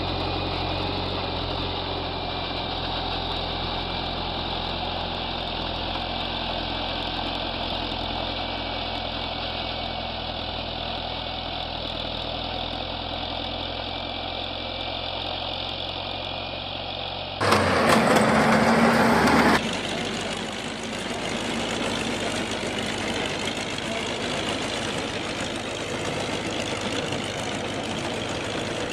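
A vehicle engine runs steadily. About two-thirds of the way through, a louder rushing noise lasts about two seconds, then a different engine sound takes over and runs steadily.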